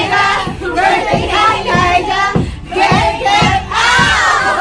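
Several voices singing together over a steady, evenly spaced beat.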